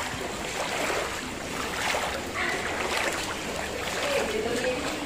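Footsteps sloshing and splashing through shallow floodwater on a stone pavement, one step after another.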